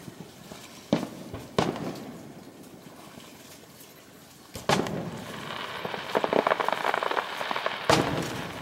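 Aerial firework shells bursting: four sharp booms, about a second in, just after, near five seconds and near the end, each trailing off in a long echo. Between the third and fourth boom, a spell of dense crackling from crackling stars.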